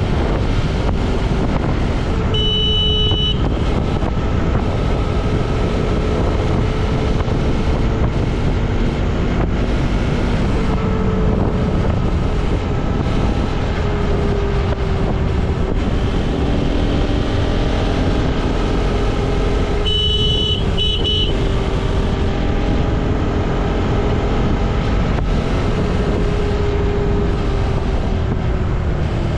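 Motorcycle running at riding speed, with steady engine and road noise throughout. A vehicle horn beeps twice, each time for about a second: a few seconds in and again about two-thirds of the way through.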